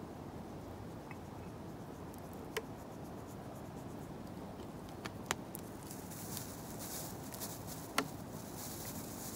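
A few light, sharp clicks and taps over a steady low outdoor background, with a soft rustling crackle from about six seconds in, as things are handled and set out for a picnic breakfast.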